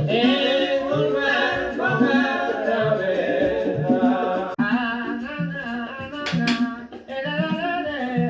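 Background music: a sung melody with a wavering voice over plucked guitar accompaniment.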